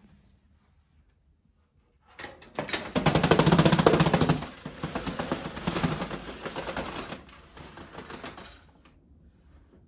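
Manual roller shutter on a balcony window being pushed up by hand, its slats clattering rapidly as they roll up into the housing. It starts about two seconds in, is loudest at first, then runs on lighter and stops shortly before the end.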